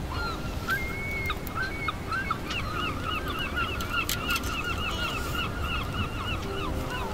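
A bird calling in a long, even series of short, sharp notes, about five a second, ending on a falling note, over a low rumble of wind and sea.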